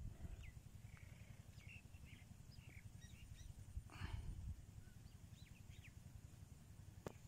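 Faint, scattered chirps of small birds, short and quick, over a low outdoor rumble, with a brief rustle about four seconds in.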